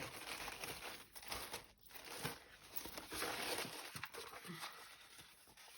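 Tissue paper crinkling and rustling as it is handled and folded back, in soft, irregular rustles with small clicks.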